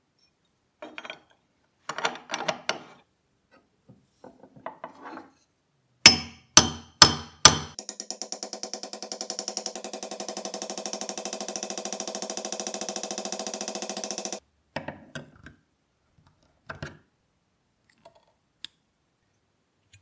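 Small hammer striking a pin punch to drive out the hinge pin of an old brass Zippo lighter: four sharp strikes about six seconds in, then a fast, even rattle of taps for about six seconds. Light clicks from handling the metal parts come before and after.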